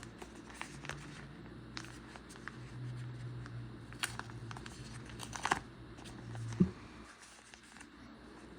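Paper rustling and light clicks as a packet of paperwork is opened and its leaflets are handled. A steady low hum sits behind it and stops right after a soft thump about two-thirds of the way through.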